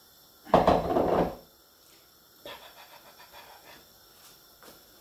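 A person's heavy breath out close to the microphone, lasting about a second, followed by a few faint light clicks.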